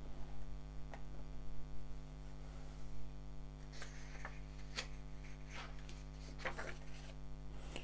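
Steady electrical mains hum, with a few faint rustles and soft taps from hands handling the pages of a paperback comic book.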